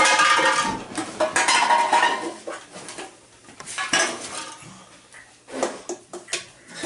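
Clattering and clinking of cans and bottles being handled and knocked about on a hard floor, in irregular bursts that are busiest in the first couple of seconds, with scattered sharp clinks later.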